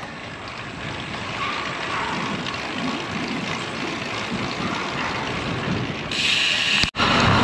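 Steady rush of wind on the microphone and tyre noise from a road bike being ridden, turning louder and hissier about six seconds in. The sound breaks off for an instant about seven seconds in.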